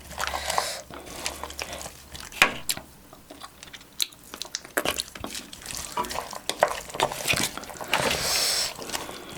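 A spoon stirring and scraping through rice with chicken and sauce in a bowl, with irregular clinks of metal on the dish as the sauce is mixed in.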